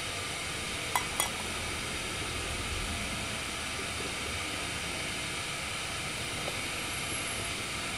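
Steady even hiss, with two light metal clinks about a second in as the camp cook pot is lifted by its wire handle.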